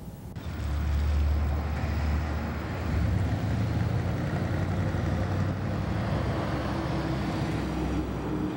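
Steady low outdoor rumble and hiss of street ambience, starting abruptly about a third of a second in.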